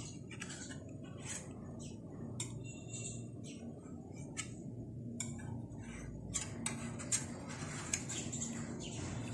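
Table knife scraping and clicking against the sides of a metal loaf tin as it is run around the edge of set agar pudding to loosen it for unmoulding. Faint, irregular scratchy clicks.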